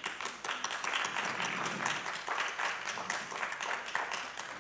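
Applause: a group of people clapping, starting at once and thinning out toward the end.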